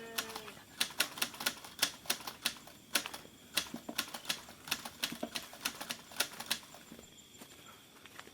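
Footsteps on dry ground, a run of irregular sharp crunches and clicks, a few each second, that thins out about six and a half seconds in.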